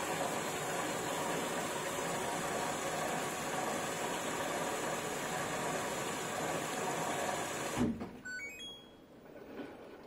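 LG front-loading washing machine running with a steady rushing noise that cuts off abruptly near the end. Just after, a quick run of short electronic beeps rises in pitch.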